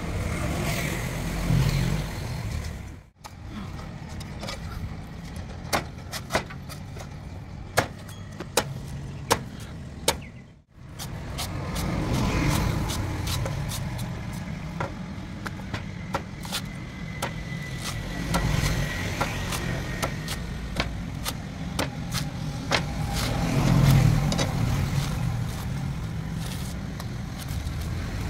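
Meat cleaver chopping and shaving a young coconut on a wooden board: many sharp knocks, quick strings of them, over a steady low rumble of road traffic. The sound cuts out briefly twice.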